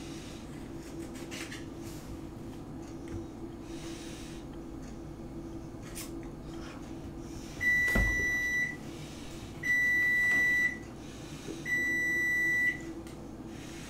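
A kitchen appliance's electronic beeper giving three long, high beeps, each about a second long and about two seconds apart, starting about halfway through. A single knock sounds during the first beep.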